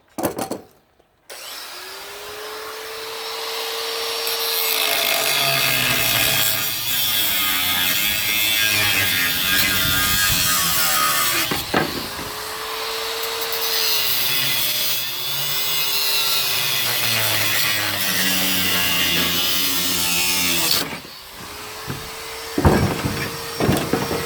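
Angle grinder cutting into a stuck bolt. Its motor whine sags and recovers each time the wheel bites into the metal. Near the end it lets off briefly, then spins back up.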